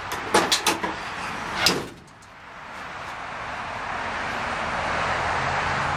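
Pickup tailgate latch clicking as the handle is pulled, then the steel tailgate dropping open with a clunk about two seconds in, followed by steady background hiss.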